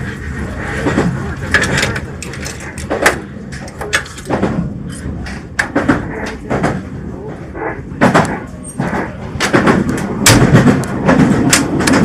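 Meitetsu Seto Line electric train heard from inside the car while running, a steady rumble with sharp clacks and knocks at irregular intervals from the wheels passing over rail joints and track, heavier near the end.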